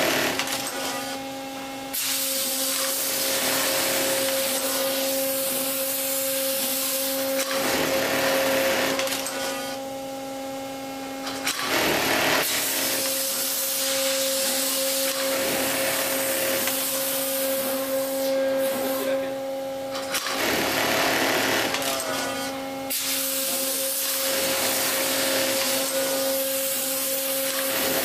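Juki MOL-254 automatic belt loop machine running through its sewing cycles: a steady hum under long stretches of dense mechanical stitching noise, which break off for a second or two several times as garments are repositioned.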